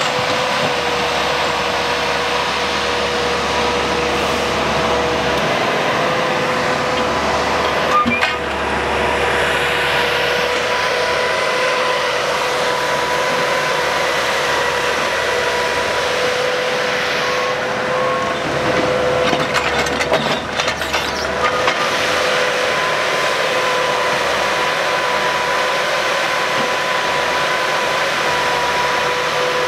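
Engine of a Kershaw rail-mounted tie crane running steadily, with a steady whine over the drone. One sharp knock comes about eight seconds in, and a few clicks and knocks come around eighteen to twenty-one seconds.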